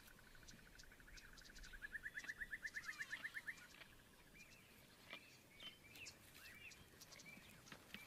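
Faint bird calls: a fast, even run of repeated high notes that swells about two seconds in and stops about halfway, then a few short scattered chirps.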